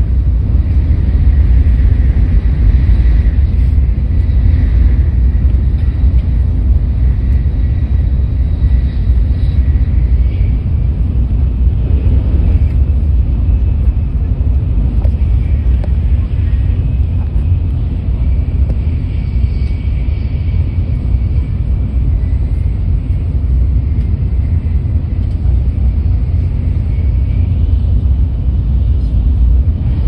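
Steady low rumble of running noise inside the cabin of a Tokaido Shinkansen N700S train under way.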